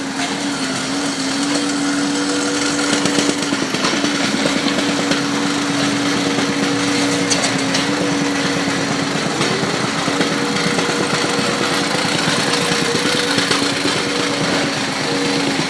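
Heavy construction machinery at a street repair, its engine running steadily with a constant hum and a fast rattle.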